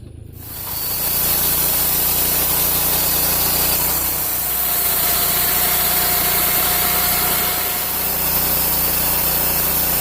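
Portable band sawmill cutting through a log: the engine runs under load while the blade saws steadily through the wood, the cut starting about half a second in.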